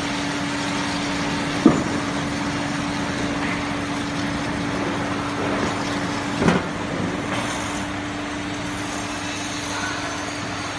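GZ4233 double-column horizontal band saw running on a clamped bundle of steel bar stock, a steady machine hum over a haze of cutting and shop noise. A sharp metallic knock comes near the second mark, and another comes about halfway through, where the hum stops and the sound drops slightly.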